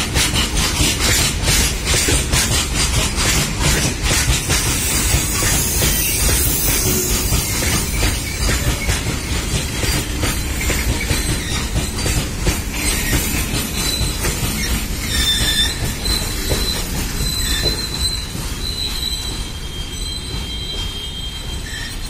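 Freight wagons of a goods train rolling past: a steady rumble of wheels with rapid clicking over rail joints in the first few seconds, then thin high wheel squeals from about halfway on. The sound slowly fades near the end as the tail of the train passes.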